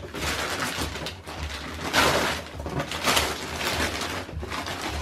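Wrapping paper being torn off a present and crinkled, with a louder rip about two seconds in and another about a second later.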